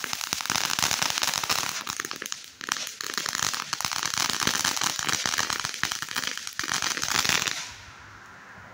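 Ground fountain firework crackling: a dense, fast run of sharp pops over a hiss that cuts off suddenly about seven and a half seconds in as the fountain burns out.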